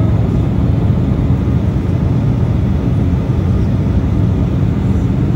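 Steady engine and airflow noise inside an airliner cabin in flight, heavy in the low end and even throughout.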